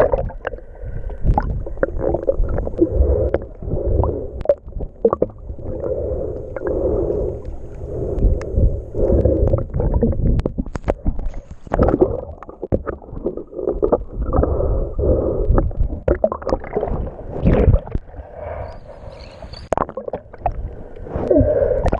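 Muffled underwater sound around a submerged GoPro in its waterproof housing: water gurgling and sloshing with a low rumble and scattered knocks as the camera moves. Near the end it turns to brighter splashing as the camera comes up to the surface.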